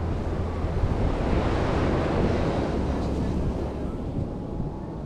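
Ocean surf washing onto a sandy beach, with wind buffeting the microphone; the wash swells about a second in and eases off toward the end.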